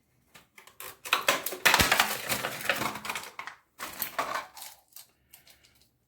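Plastic toilet-tank parts clicking and clattering in the hands while the flapper is taken off the flush valve and a new one fitted. A dense run of knocks in the first half gives way to a few scattered, fainter clicks.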